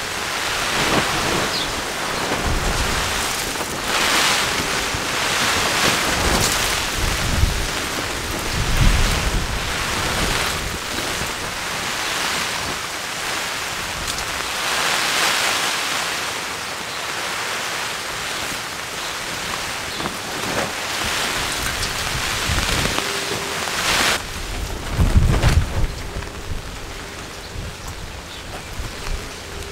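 Rain falling on nylon tarps overhead, a steady patter with gusts of wind that swell every few seconds. Low wind rumbles buffet the microphone, strongest near the end.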